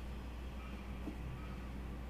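Steady low hum with a faint hiss: background noise on a video-call line while nobody speaks.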